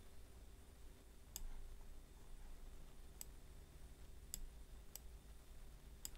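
Five faint, sharp computer mouse clicks at uneven intervals, over a low steady room hum.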